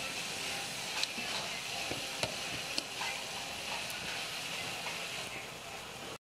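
Chunks of raw beef sizzling steadily in hot oil with sautéed onion, pepper and tomato in an aluminium pot, with a few sharp clicks from a spoon stirring them.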